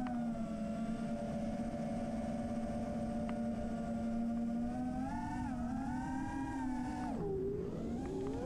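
Four brushless motors of a 6S freestyle FPV quadcopter (T-Motor F40 Pro IV 1950KV) spinning three-blade props, heard from the onboard camera: a steady buzzing whine that follows the throttle. It rises about five seconds in, then drops sharply for about half a second near the end and climbs back as the quad rolls into a dive.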